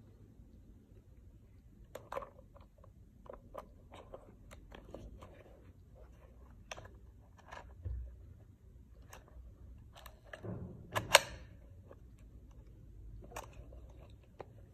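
Small clicks, taps and scrapes of metal parts as a Voigtländer Color-Skopar X 50 mm f/2.8 lens is fitted to a Voigtländer Bessamatic's bayonet mount and the camera is handled. There is a sharper double click about eleven seconds in.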